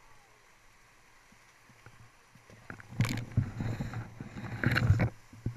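Feet splashing through a rushing mountain stream: a faint steady rush of water, then about three seconds in two seconds of loud splashing and thudding steps that stop suddenly.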